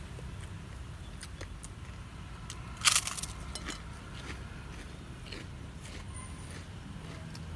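Close-up eating sounds: a person chewing with small wet mouth clicks, and one loud crisp crunch of raw greens about three seconds in. A low steady rumble runs underneath.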